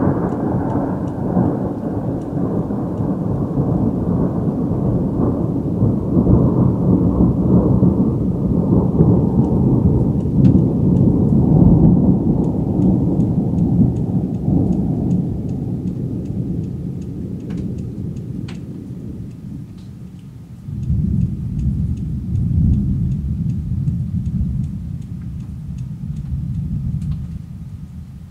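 Two long peals of thunder rumbling low. The first rolls on for about twenty seconds and slowly dies away, then a second peal starts suddenly about three-quarters of the way through. Light rain ticks in the background.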